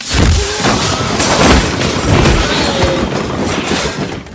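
Very loud, heavily distorted blast of noise that starts suddenly and lasts about four seconds before dropping away near the end.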